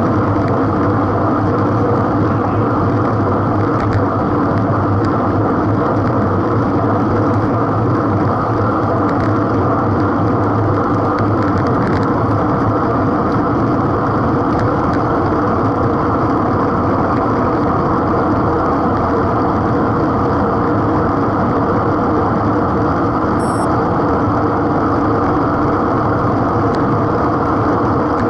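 Steady, loud rumble of wind and road noise picked up by a bicycle-mounted action camera riding at speed in a group.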